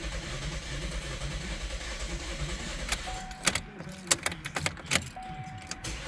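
Chevrolet Cruze 1.4L turbo four-cylinder idling unevenly, misfiring with an injector connector left unplugged. About halfway through, the engine sound drops back under a quick run of sharp clicks and two short beeps.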